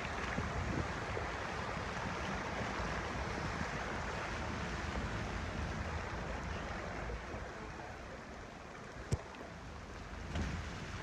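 Tropical storm wind gusting and buffeting the microphone, over a steady rush of choppy harbour water. There is a single sharp click about nine seconds in.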